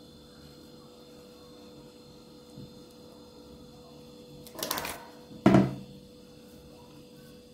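A metal spoon scraping filling out of a plastic mixing bowl for about half a second, then a single sharp knock.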